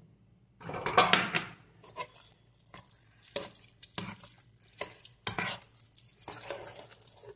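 Metal spoon stirring curd into cooked rice in an aluminium pressure cooker: a louder burst about a second in, then repeated scraping strokes with clinks of the spoon against the pot.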